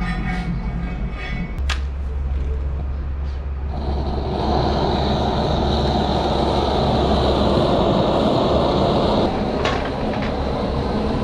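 A click, then a gas torch fed from an LPG cylinder burning with a steady rushing hiss, over a low hum; the hiss starts about four seconds in and stops about two seconds before the end, followed by a couple of light clicks.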